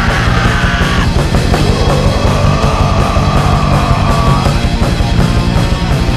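Loud, fast heavy rock music with rapid pounding drums and a long held high note that stops about four and a half seconds in.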